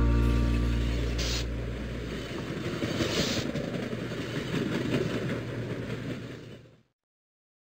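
Steady rumble of a train riding along, with two short hisses about one and three seconds in, while the song's last low note dies away. It cuts off suddenly near the end.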